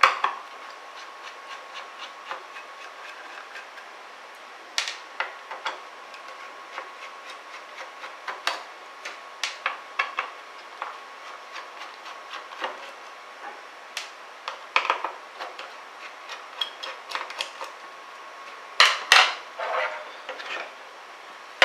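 Irregular light clicks and taps of a screwdriver and small hard parts as a graphics card's cooling system is taken apart, with a cluster of louder knocks near the end.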